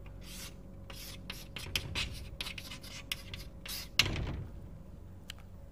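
Handwriting: a quick run of short scratchy strokes for about four seconds, the last one sharper, then stopping.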